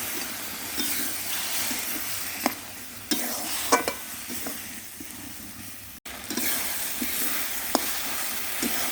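Spice paste of onion, garlic, tomato and ginger sizzling in oil in a pan while it is stirred, with a few sharp clicks of the spatula against the pan. The masala is being fried down (kosha) until the oil separates.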